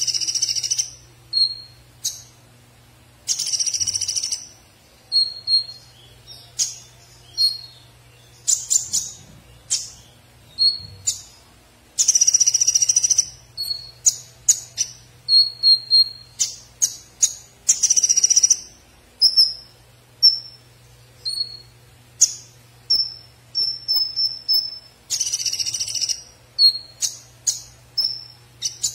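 Caged male van Hasselt's sunbird (purple-throated sunbird, the 'konin' or kolibri ninja) singing: a fast string of short, thin, high chips and ticks, broken every few seconds by a longer, harsher burst of about a second.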